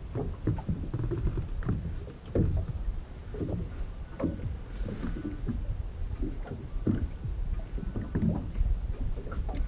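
Small waves slapping irregularly against the hull of a drifting inflatable boat (RIB), over a steady low rumble.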